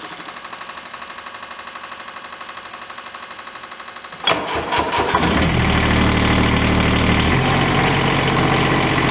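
Kubota D722 three-cylinder diesel, pre-warmed by a block heater, cranking on the starter for about four seconds with a fast even pulsing. It then catches with a sudden loud burst and settles into a steady idle, its pitch dropping a few seconds after it starts.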